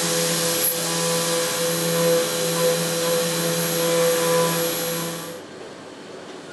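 Optimum F150 CNC milling machine cutting a metal block: a steady spindle whine with several held tones over the hiss of the cut, and a sharp tick just under a second in. The cutting sound stops abruptly about five seconds in, leaving a much quieter hum.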